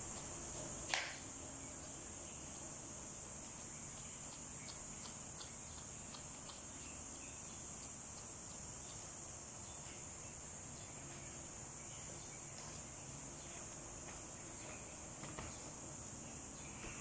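A brush combing through a dog's thick curly white coat in faint scratchy strokes, over a steady high-pitched hiss. There is one sharp click about a second in.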